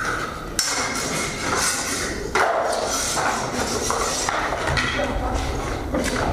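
Steel training swords clashing against each other and against a buckler in sword-and-buckler sparring: a series of sharp metallic clanks, the loudest about two and a half seconds in, ringing on in a stone-vaulted hall. A heavier thudding comes around five seconds in as the fencers close in.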